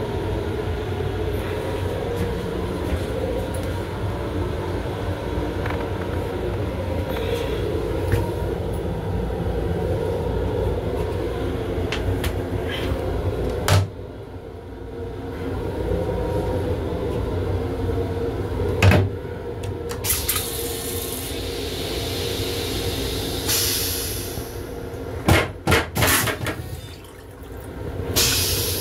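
Steady running rumble of a Long Island Rail Road M7 railcar heard from inside its restroom. About halfway a sharp click comes and the rumble drops. The restroom toilet then flushes with hissing rushes and several sharp clunks near the end.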